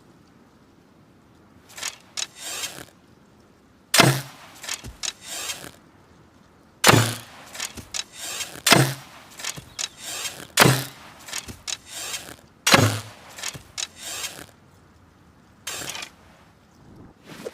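Hunting bow shot five times, about two seconds apart: each shot is a sharp snap with a short low thump, followed by a few lighter clicks and rattles. Fainter clatter comes shortly before the first shot and again near the end.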